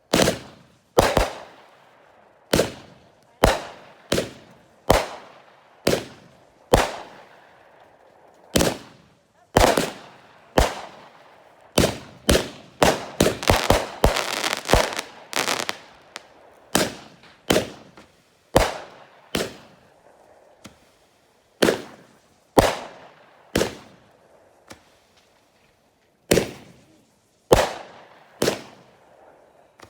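Fireworks going off: a series of sharp bangs about a second apart, with a quick run of rapid cracking about halfway through.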